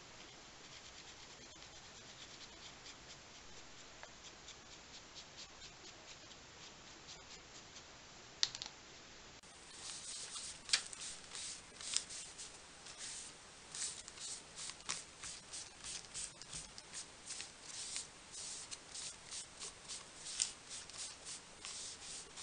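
A damp baby wipe rubbed back and forth over paper coloured with Inktense pencil, in quick scratchy strokes about two to three a second, starting about ten seconds in. Before that there are only faint rustles of handling.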